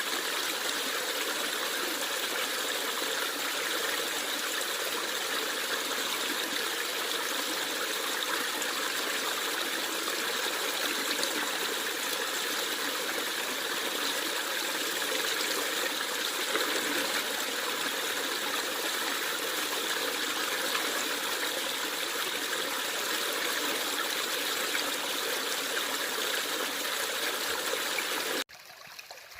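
Stream water babbling steadily. About a second before the end, the sound drops abruptly to a much quieter level.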